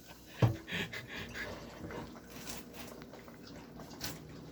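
A soft thump about half a second in, then faint sipping and breathing as a soda is tasted.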